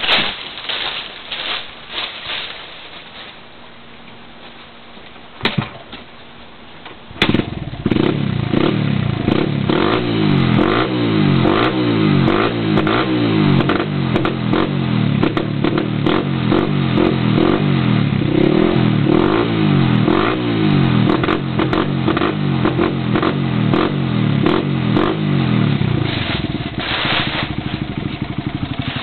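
Honda CRF80F's single-cylinder four-stroke engine with an FMF exhaust: after a few knocks and clatters it starts about seven seconds in and is blipped up and down repeatedly, one rev after another, then settles toward idle near the end.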